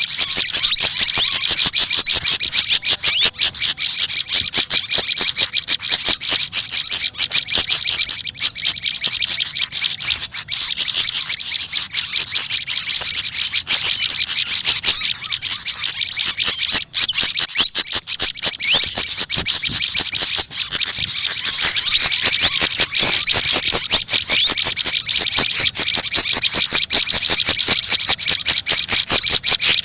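Continuous, rapid, high-pitched chirping and chattering from small songbirds, the Indonesian sikatan kipas and prenjak lumut, dense and unbroken throughout.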